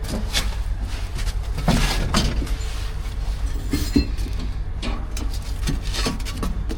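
Metal clinks and clanks of tie-down chains being taken off a trailer, scattered irregularly over a steady low engine rumble.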